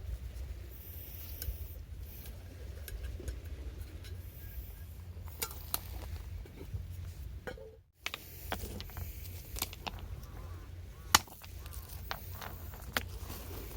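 Scattered sharp clicks and small knocks of wood, irregular and sparse, over a steady low rumble. The sound drops out briefly about eight seconds in.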